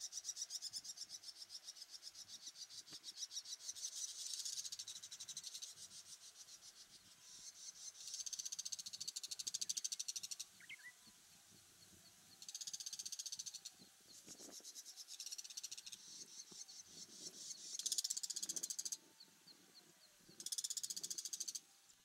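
Young birds' begging calls: fast, buzzy, high-pitched pulsed calls in bouts of a second or three, stopping and starting abruptly.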